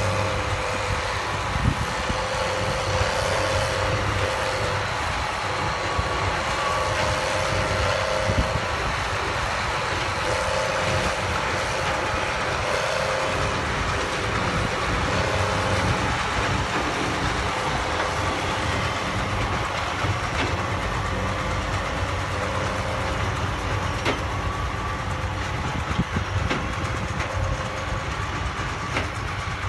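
Case IH and New Holland tractors' diesel engines running steadily under load as they pull New Holland large square balers through corn stalks, with the balers' machinery running. A mid-pitched hum swells and fades every couple of seconds over the low engine rumble.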